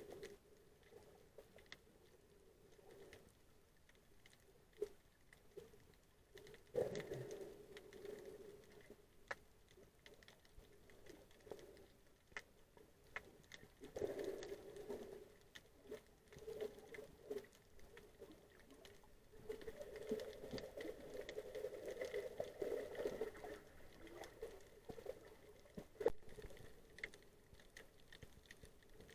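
Faint, muffled underwater sound heard through an action camera's waterproof housing: water moving against the case, with scattered clicks and taps.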